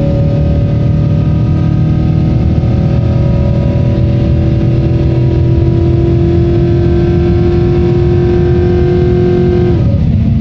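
Chevy truck engine running on compressed natural gas, accelerating hard with its revs climbing steadily toward about 5,000 rpm, heard from inside the cab. Near the end the pitch drops abruptly as the transmission shifts up.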